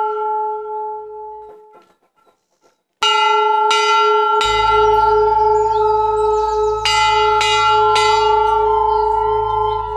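Large brass temple bell struck by hand, its deep ringing fading out over about two seconds. After a short silence, several hanging temple bells are rung, about half a dozen clangs with long overlapping ringing and smaller bells jingling, over a low steady rumble.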